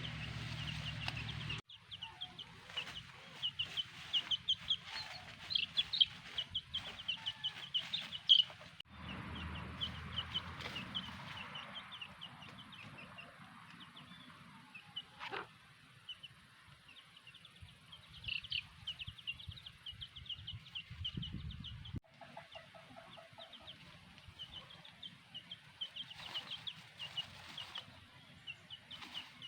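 Domestic chicks peeping in rapid, high chirps, with a hen clucking now and then.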